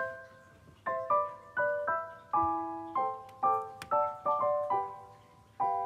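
Background piano music: a melody of single struck notes and chords, a few a second, each note dying away after it is struck.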